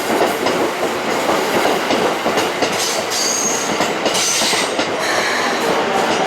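Electric commuter train running along the track, with steady rumble and rapid clatter of the wheels. Brief high wheel squeals about halfway through.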